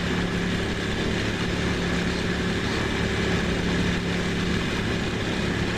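Ducati Monster's V-twin engine running at a steady, unchanging pitch.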